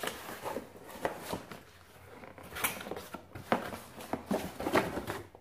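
A cardboard shipping box being opened and handled by hand: scattered rustles, scrapes and light knocks of cardboard against the table.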